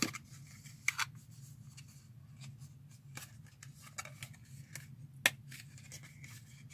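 A hair clip set and its paper card packaging being handled by hand: light rustling with scattered small clicks, a few sharper ones about a second in and again about five seconds in.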